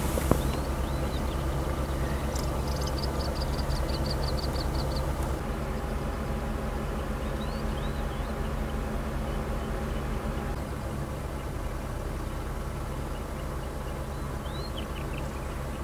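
A vehicle's engine idling with a steady low hum. A few faint high chirps sound over it, and a quick run of ticks comes a few seconds in.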